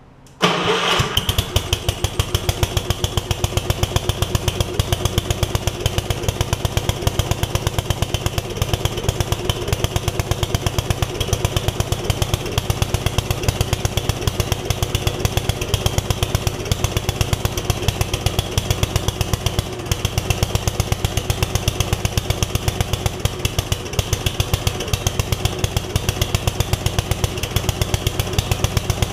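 Gravely 5665 walk-behind tractor's Kohler engine catching about half a second in, then running steadily with an even firing beat. The owner says it acts as if it is dumping fuel into the carburetor.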